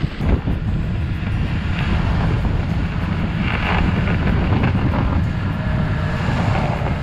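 Wind rumbling on the camera microphone: a steady low buffeting noise, brightening briefly about halfway through.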